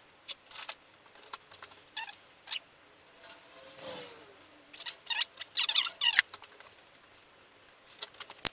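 Metal bicycle chain clinking and rattling in short bursts as it is handled, with a brief squeak near the middle.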